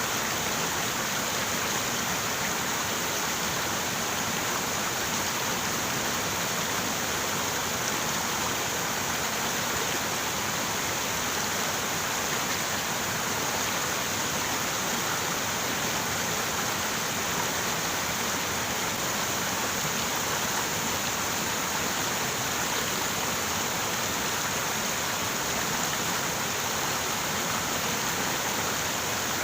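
River water running steadily over rocks, an even rushing with no changes.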